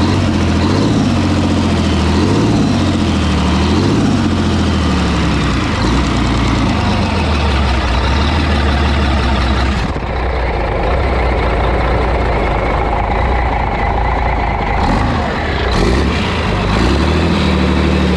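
Freshly rebuilt Scania 11-litre straight-six diesel engine running steadily on its first run after the rebuild, with new liners, pistons and rings.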